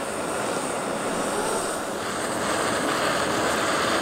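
Steady hiss of a BRS canister gas stove burning at full flame under an enamel coffee percolator, with the water inside near the boil.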